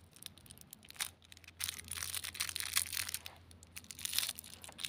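Scissors snipping open a small clear plastic pouch, with the thin plastic crinkling and rustling in the fingers. There is a sharp snip about a second in, then a longer stretch of crinkling.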